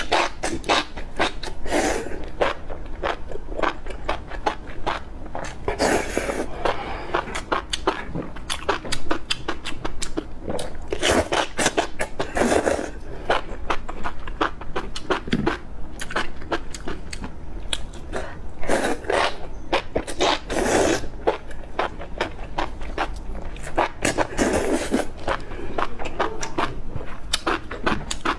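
Close-miked eating of enoki mushrooms in spicy broth: a steady stream of wet chewing and mouth clicks, with longer slurps every few seconds as bundles of mushrooms are sucked in.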